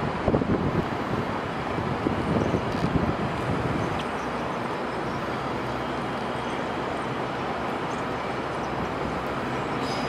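GO Transit bilevel commuter train running past, pushed from the rear by its MP40PH-3C diesel locomotive. It makes a steady rumble of wheels on track, with a few low uneven thumps in the first three seconds.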